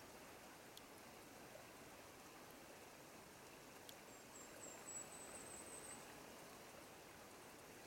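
Faint, steady trickle of a shallow forest stream, with a couple of small drips plinking into the water. About four seconds in, a brief series of very high, thin chirps rises slightly in pitch for about two seconds.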